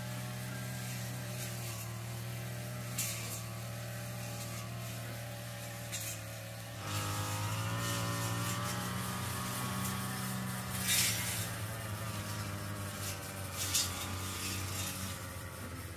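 A steady low motor hum, with a few brief faint clicks. It gets a little louder and shifts in pitch about seven seconds in.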